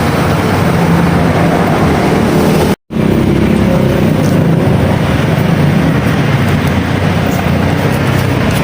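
An engine running steadily, with a brief complete dropout about three seconds in.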